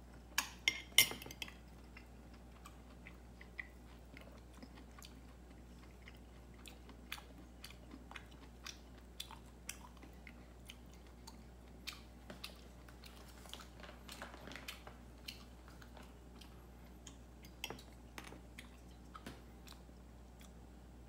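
A cat chewing food with small wet clicks and smacks scattered throughout, and a louder run of clicks about a second in.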